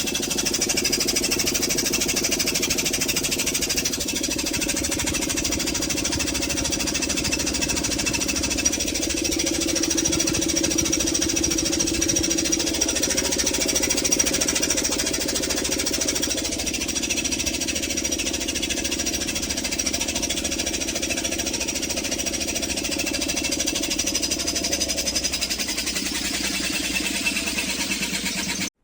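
Cecotec Bolero Dresscode 7410 front-loading washing machine running loudly and steadily, with a fast rattle and a whine under it.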